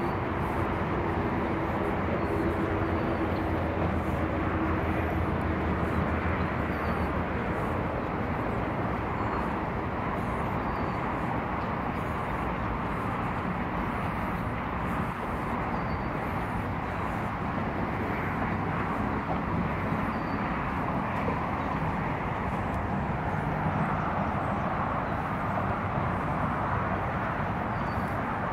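Steady hum of distant traffic under a low engine drone that fades out over the first several seconds, with footsteps on asphalt and a bird chirping now and then.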